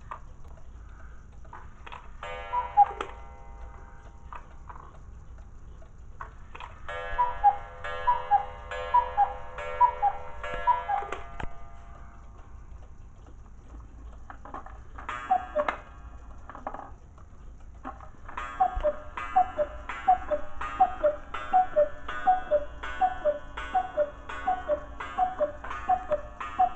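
Cuckoo clock calling, set off as the minute hand is pushed round by hand; each call is two whistled notes, the second lower. First a single call, then a short run, another single call, and finally a long run of about twelve calls as the hands reach twelve, with clicks from the mechanism between the calls.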